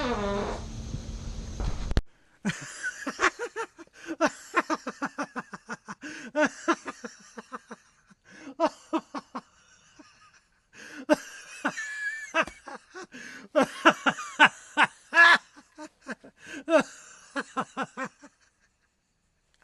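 A person laughing in several runs of quick bursts, with short pauses between them.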